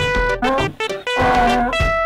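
Playful background music led by brass: a run of short notes, then longer held notes, one of them wavering.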